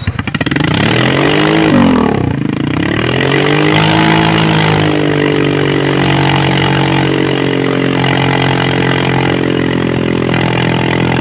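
Car engine revved through an electronic exhaust-valve system. The revs rise and fall once, then climb and are held steady at a raised engine speed for the rest of the time.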